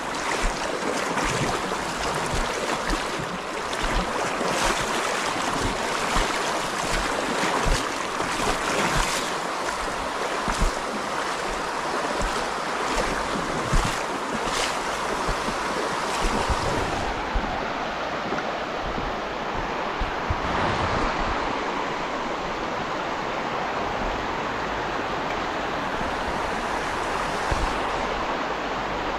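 River water rushing over a shallow, stony riffle: a steady hiss of flowing water. During roughly the first half, sudden bumps and wind rumble on the microphone come and go.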